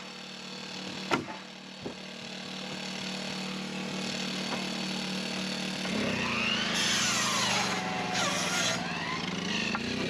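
A power saw cuts through wood. A motor runs steadily, then about six seconds in its pitch drops under the load of the cut, with hissing bursts of sawing, and it climbs back up near the end.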